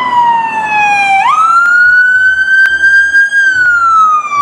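Police car siren on wail: the tone falls slowly, rises quickly about a second in, holds high for a couple of seconds, then falls slowly again.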